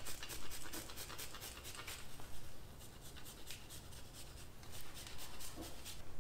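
A chocolate bar being grated on a microplane: quick rasping scrapes, about five strokes a second, that stop shortly before the end.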